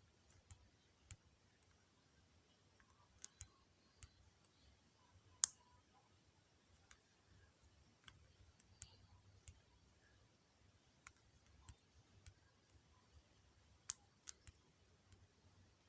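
Faint, scattered clicks at irregular intervals over near silence, the loudest about five and a half seconds in.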